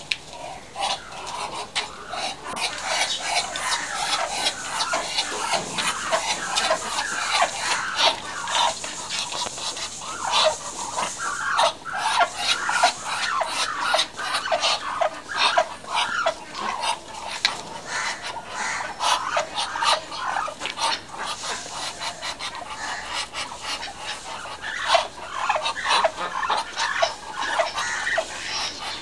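Muscovy ducks making a rapid, continuous run of short breathy calls.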